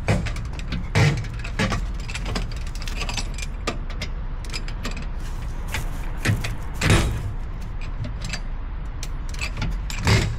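Wheel bolts being fitted by hand into a steel wheel: irregular metallic clinks and scrapes, the loudest about a second in and near seven seconds, over a steady low rumble.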